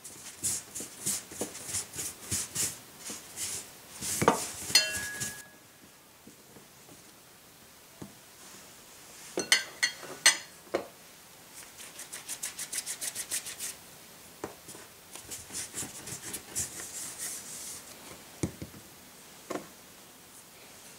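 Rhythmic rubbing strokes on a wooden surface, in runs of about three to four a second, as in kitchen dough work. There are a few sharp clinks of utensils about four seconds in and again near the middle.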